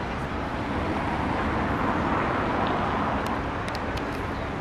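Steady city road-traffic noise, swelling briefly about two seconds in as a vehicle passes.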